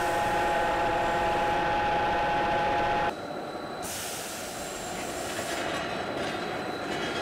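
Steel-bar peeling machine running as it strips the oxidised outer layer off a raw barbell bar, a steady whine of several held tones over a rumble. About three seconds in, it gives way to the quieter, steady running of a roller bar-straightening machine.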